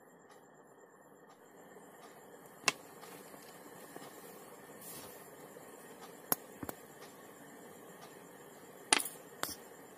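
A handful of sharp, irregularly spaced knocks and clicks of small teak wood blocks being set down and handled on a wooden tabletop, the loudest near the end, over a faint steady hiss.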